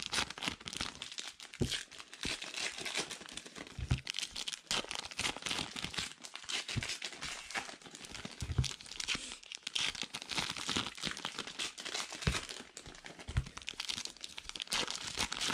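Baseball card pack wrappers being torn open and crinkled, with a constant crackle and many small clicks. A few soft knocks come as cards are set down on stacks on a felt table.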